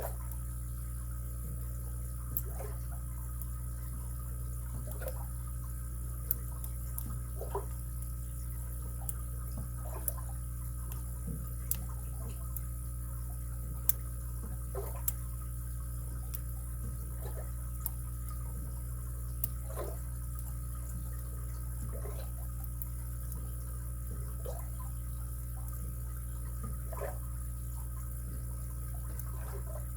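Faint, irregular metal clicks and small scrapes of lock picks working in a padlock's keyway, over a steady low hum.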